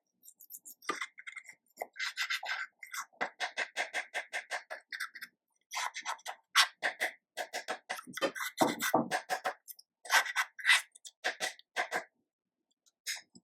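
Slime being squeezed and poked by hand, giving rapid runs of wet clicks and pops in irregular bursts, with brief pauses.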